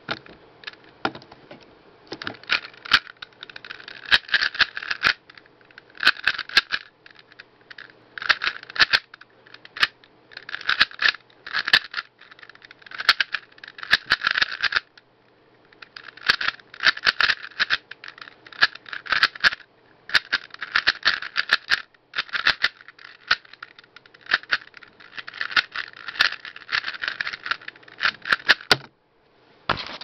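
Haiyan Memory 3x3 speedcube being turned fast during a Fridrich-method solve: rapid plastic clicking and clacking of the layers, in bursts of quick turns a second or two long separated by short pauses. It stops a little before the end.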